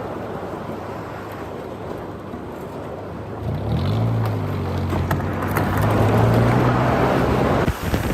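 Car engine pulling under acceleration: its note climbs slowly and grows louder for about four seconds over a rush of wind and traffic, then cuts off sharply near the end.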